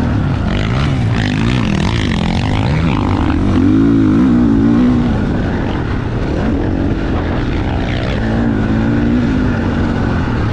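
GasGas MC 450F four-stroke motocross bike engine running under riding load, its revs rising and falling repeatedly as the throttle is worked, with a steady rush of wind over the microphone.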